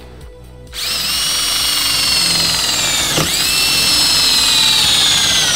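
Cordless drill's motor whining as it bores a hole through the metal frame of a golf cart rear seat kit, starting about a second in. The pitch sags slowly as the bit bites, with a brief dip about three seconds in.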